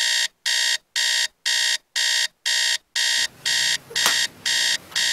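Digital alarm clock going off: a steady run of short, identical electronic beeps, about two a second.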